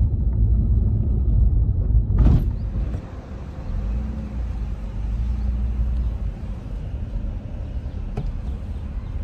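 Low rumble of a car driving slowly, heard from inside the cabin, with one brief knock about two seconds in, after which the rumble is quieter.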